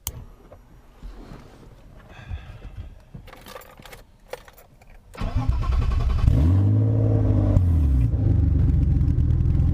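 BMW E30's swapped-in M50B25 inline-six starting about five seconds in after a few faint clicks. It revs up and back down once, then settles into a steady idle.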